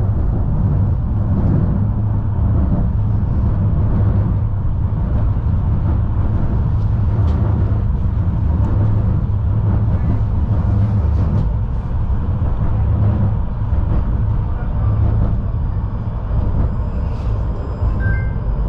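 Tram running along the track, heard from inside the car at the rear window: a steady low rumble with a few faint clicks.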